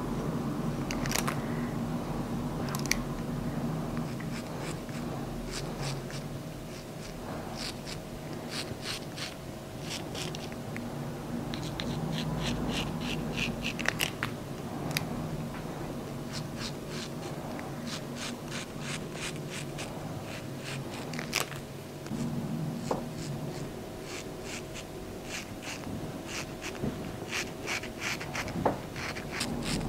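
Straight razor scraping stubble off lathered skin in quick runs of short strokes, with brief pauses between runs. A steady low hum runs underneath.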